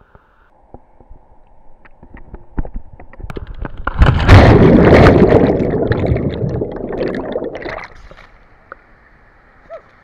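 Water splashing and gurgling around a waterproof camera as a swimmer gets into a river pool and the camera goes under. Small knocks and splashes build up, then a loud stretch of churning, bubbling water starts about four seconds in and ends about eight seconds in.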